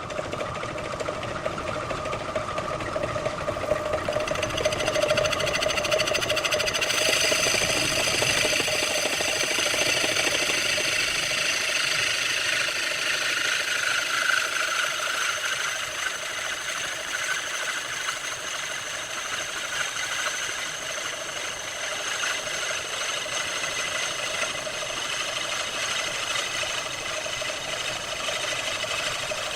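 Wood lathe running steadily, with the hiss of a tool working the spinning wood that grows louder about seven seconds in.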